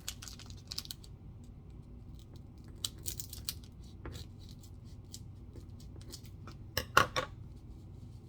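A foil trading-card pack being opened and handled: scattered crinkling and crackling of the wrapper, with a couple of sharp snaps about seven seconds in that are the loudest sounds.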